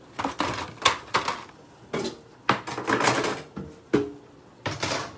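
Pots, pans and utensils clattering and clinking at a kitchen stove: a run of irregular knocks and scrapes, with a short ringing clink about four seconds in.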